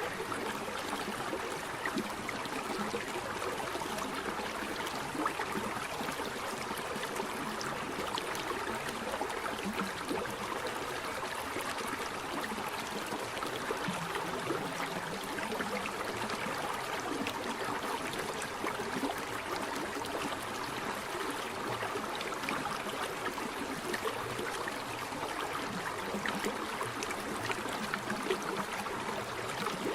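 Steady rushing of flowing water, an even noise without breaks or distinct splashes.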